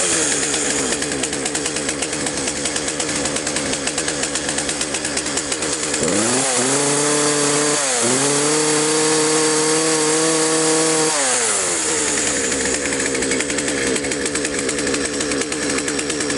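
Partner chainsaw's two-stroke engine running just after a cold start with the choke opened: it idles, is revved up about six seconds in, dips briefly and rises again, then drops back to idle around eleven seconds in.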